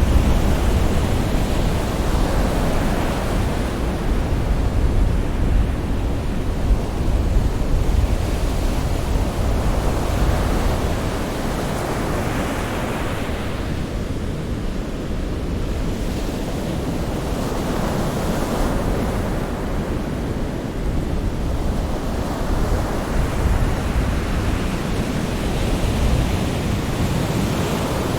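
Sea waves breaking and washing onto a shore. A surge of surf comes every five seconds or so over a steady low rumble.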